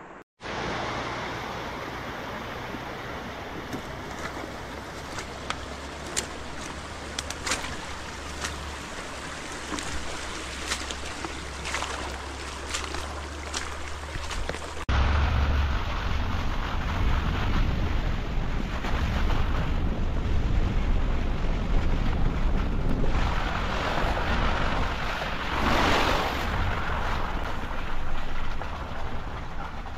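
Steady outdoor rushing noise with a low hum, as recorded by a trail camera's microphone, with a few faint clicks in the first half. About halfway through it cuts sharply to a louder, deeper rumble.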